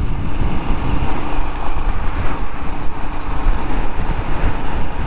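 Royal Enfield Himalayan 411 cc single-cylinder engine running at a steady cruise, mixed with wind and road noise at the bike.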